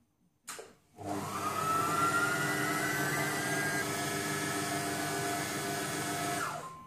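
Silvercrest Monsieur Cuisine Connect food processor's motor running its blade at speed 5 to mix cake batter: a short click, then the motor spins up with a rising whine, runs steadily, and winds down with a falling whine near the end.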